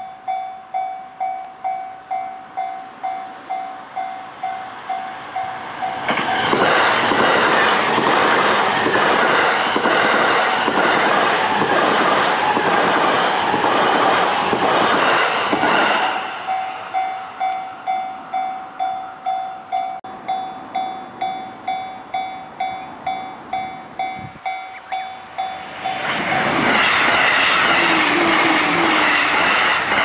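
Japanese level-crossing warning bell dinging about twice a second. About six seconds in, a limited-express train rushes past at speed for roughly ten seconds, its wheels clacking over the rail joints and drowning the bell. The bell then dings alone again until a second train, an E531-series commuter train, starts passing near the end.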